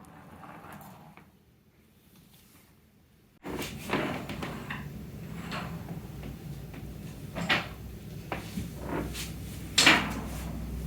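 Hard objects knocking and clattering, the way wooden toys do when a toddler handles them: several sharp knocks a second or two apart, the loudest near the end. A steady low hum starts suddenly about three seconds in.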